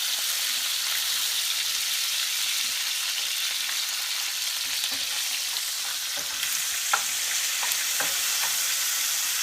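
Tomatoes, tomatillos and dried chiles sizzling steadily as they fry in a pan, with a few short clicks in the second half.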